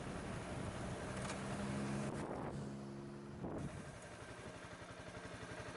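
Motorcycle engine running while riding, with wind rushing over the microphone; the engine note holds steady, then settles lower and a little quieter in the second half.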